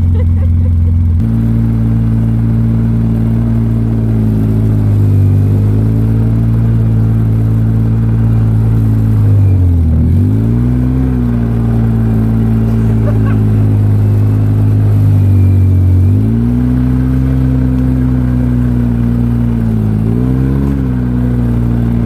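Engine of the vehicle towing a wakeboarder through snow, running steadily under load. Its revs dip and pick up again about ten seconds in, then twice more near the end.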